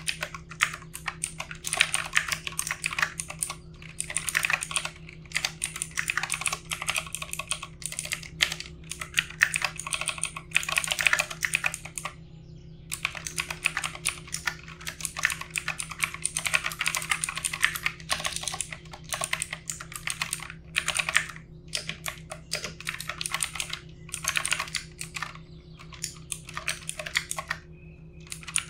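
Typing on a mechanical computer keyboard: quick runs of key clicks broken by short pauses, with a faint steady hum underneath.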